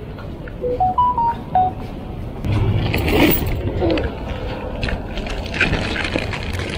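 A short electronic chime of five quick beeps at different pitches, rising then falling, about a second in, followed by a louder low rumble and rustling.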